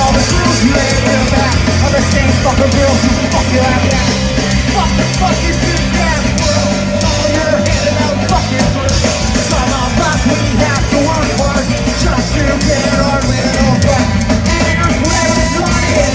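Live ska-punk band playing a song loudly and steadily.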